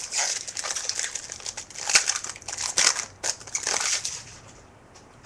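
Crinkling and rustling as a 2008-09 Topps Chrome trading-card pack and its cards are handled, in irregular crackles for about four seconds before dying down.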